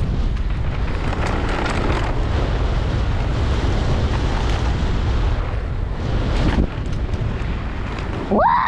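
Wind buffeting a GoPro action camera as a downhill mountain bike descends at race speed, with the bike rattling over rough, brake-bumped ground.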